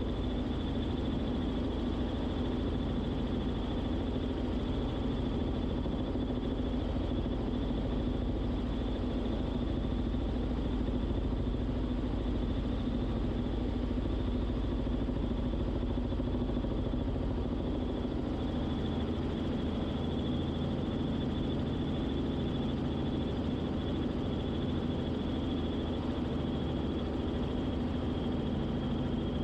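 Robinson R44 Clipper II helicopter in cruise flight: a steady drone of engine and rotor, with a constant low hum and a thin high whine.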